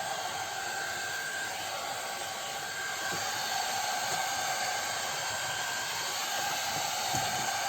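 One Step hot air brush (hair dryer and styler) running on its medium setting: a steady rush of blown air with a faint high whine.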